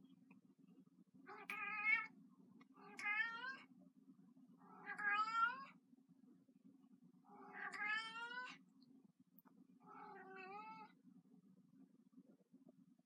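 A 15-year-old house cat meowing five times, each call about a second long, with pauses of a second or more between them.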